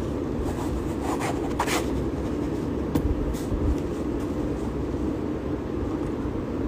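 Pen writing an autograph on paper held right against a phone's microphone: a steady rubbing with a few short, sharper scratches in the first half.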